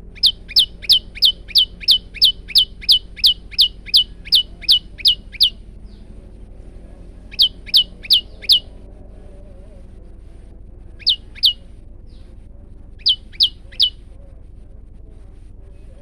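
A male prenjak lumut calling in sharp, piercing notes that each sweep down in pitch. It gives a fast run of about sixteen notes at roughly three a second, then after a pause shorter bursts of four, two and three notes.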